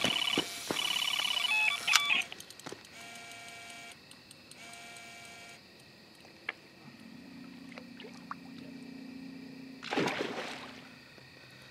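Electronic carp bite alarms sounding rapid runs of beeps, the signal of a fish taking the bait and running line off the reel: loudest for the first two seconds, then two shorter, quieter runs. A short burst of splashing comes about ten seconds in.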